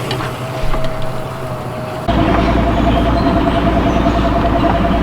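Boat motor running with a steady whine, which jumps to a louder, rumbling run about two seconds in as the boat gets under way.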